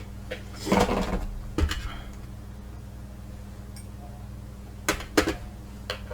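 Small metal objects being handled on a hard work surface: a short clatter about a second in, then a few sharp clinks near the end, over a steady low hum.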